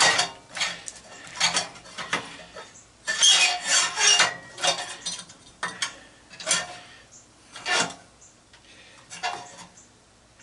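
Irregular metal clinks, clanks and scrapes of tools and parts being handled on an aluminum light fixture, busiest about three to four seconds in and sparser toward the end.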